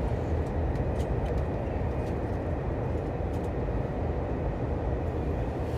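Passenger train running through a tunnel, heard inside the carriage: a steady low rumble with a few faint light clicks.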